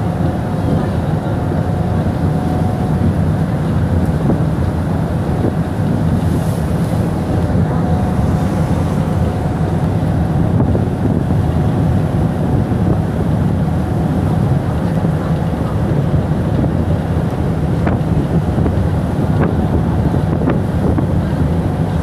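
Steady drone of a ship's engine under way, with strong wind blowing across the microphone and the rush of a rough sea against the hull.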